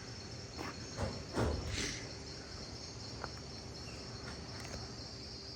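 A steady, high-pitched chorus of tropical rainforest insects. There are a few faint knocks in the first two seconds.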